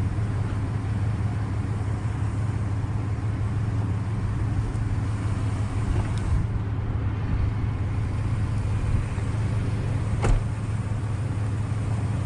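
Steady low rumble of road traffic on the bridge, with one sharp click about ten seconds in.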